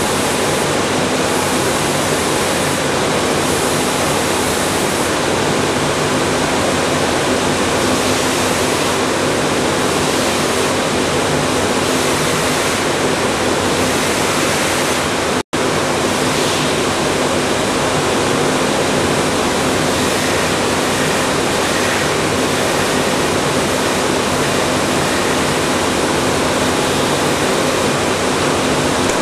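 Kuhlmeyer TBS weld-dressing sanding machine running: a steady, dense rushing noise with a low hum underneath, unchanged as the panel is worked and unloaded. It cuts out for an instant about halfway through.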